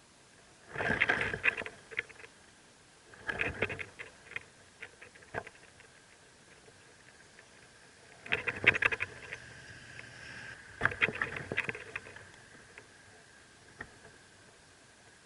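Rustling and scratching in a mockingbird nest with nestlings: four crackly bursts about a second long each, with scattered ticks between them and a faint thin steady tone under part of it.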